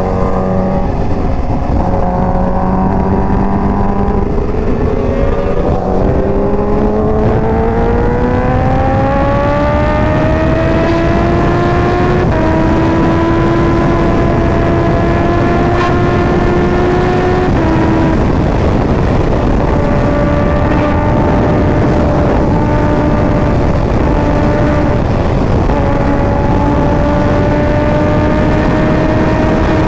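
2018 Yamaha R1's crossplane inline-four, fitted with a Competition Werkes exhaust, climbing steadily in revs for about ten seconds. It then holds high revs at freeway speed with a couple of small dips before rising slowly again, over a heavy rush of wind noise.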